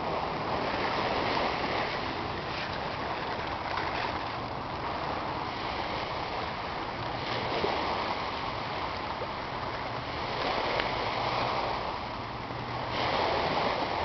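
Small waves washing in over and around shoreline rocks: a steady rush of water that swells louder a few times and eases off again.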